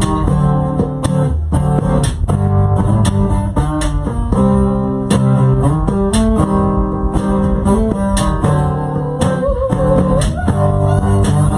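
Rock band playing a song's instrumental intro live: guitar riffing over bass with a steady percussive beat, and a bending, wavering guitar note near the end.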